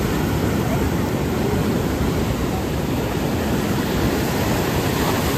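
Steady rushing of wind and water, with wind buffeting the microphone.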